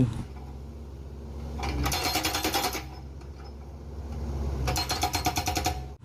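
Hydraulic breaker hammer on a Bobcat mini excavator pounding rock in two bursts of rapid blows, each lasting about a second. Between and under the bursts the machine's engine runs steadily.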